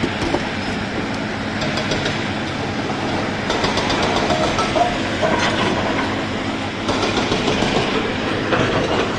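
Hyundai 210 tracked excavator's diesel engine running steadily under load while it shifts stone, with rocks clattering and knocking against each other and the bucket a few times.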